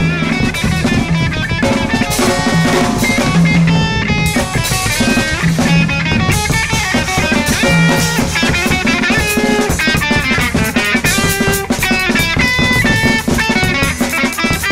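Instrumental noise-rock music: a drum kit playing steadily under ukulele and other plucked strings.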